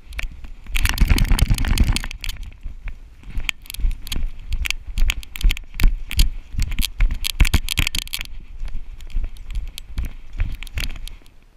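Knocks and rattles from a GoPro Hero3 strapped to a running giant schnauzer's fetch harness: rapid, irregular thumps and clicks as the dog moves, with a louder rush of rubbing noise about a second in.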